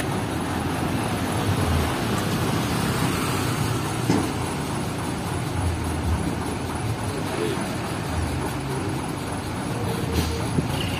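Heavy diesel dump truck engine running at idle, a steady low rumble mixed with passing traffic noise.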